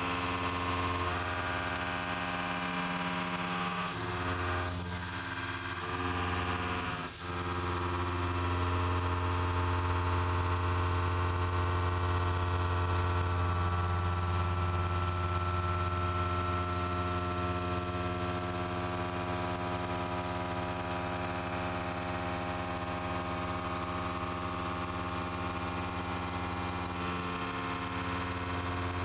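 Kennametal Mill 4-15 indexable shoulder mill taking a deep cut in 4140 steel on a DMG MORI DMU50: a steady, pitched ringing hum from the inserts striking the steel, over a constant high hiss. The tone shifts several times in the first seven seconds and again near the end as the cut changes.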